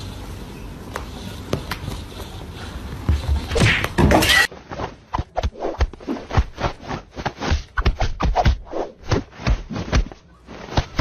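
Light taps of a kitten's paw on a tablet screen and the sounds of a fruit-slicing game, with a loud burst near four seconds in. After a sudden change in the sound, a run of quick, uneven clicks and knocks follows, about three or four a second.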